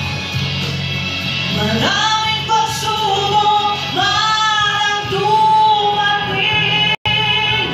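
A woman singing a ballad melody into a microphone over instrumental accompaniment. The voice enters about two seconds in and holds long notes, and the sound cuts out for an instant near the end.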